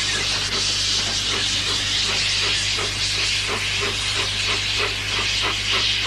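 British Railways Standard Class 8 Pacific No. 71000 Duke of Gloucester blowing off a loud, steady hiss of steam from its cylinder drain cocks as it works away. About halfway through, regular exhaust chuffs, roughly three a second, come through the hiss.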